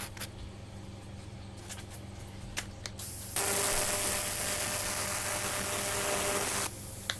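TIG welding arc on thin aluminium beer cans: a steady hiss with a faint buzz, struck about three and a half seconds in and broken off about three seconds later. A few light clicks come before it.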